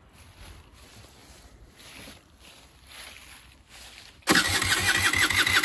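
Peugeot Elystar 50 TSDI scooter's air-cooled 50cc two-stroke engine doing a cold start after a month standing: a few seconds of faint knocks, then about four seconds in it catches at once and runs loudly with a fast rattling beat.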